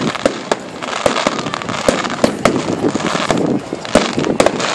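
Fireworks going off: a rapid, irregular string of sharp cracks and bangs, several a second, over a continuous crackling hiss.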